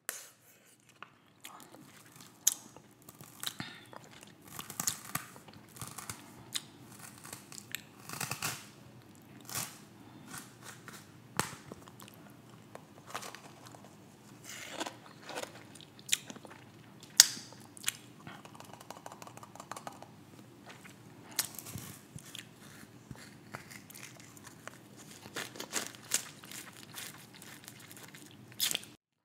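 A person eating close to the microphone: chewing and biting, with frequent sharp mouth clicks and smacks at irregular intervals.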